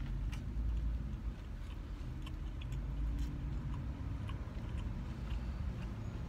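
Chewing with small, irregular mouth clicks from eating a burger, over a steady low vehicle rumble.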